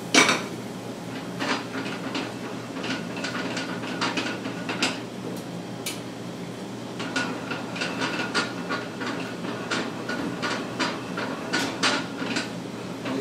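Metal pans and utensils clinking and knocking on a gas range, one sharp knock just at the start and scattered lighter clinks after, over a steady low hum of kitchen equipment.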